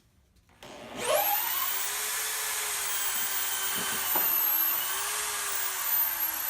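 Power drill running in reverse: it winds up about a second in, runs at a steady high whine, and its pitch sags slowly near the end as it comes under load.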